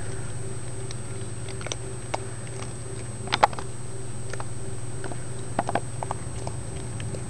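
Raccoons feeding on scattered food pellets: scattered sharp clicks and crunches, loudest about halfway through and in a quick cluster near the end, over a steady low hum.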